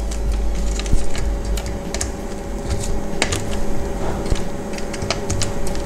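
Irregular light plastic clicks and taps as the housing parts of a VW instrument cluster are handled and clipped together, their locking tabs latching, over a steady low hum.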